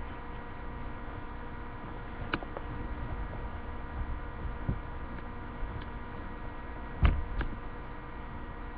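Steady electrical hum, with a few short knocks and handling noises as a reborn doll's clothes and diaper are worked on, the loudest knock about seven seconds in.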